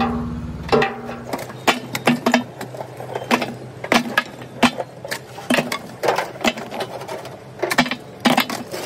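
Lumps of coal dropped by hand into a cardboard box, knocking and clattering against each other in irregular clacks several times a second. A low hum cuts off about a second in.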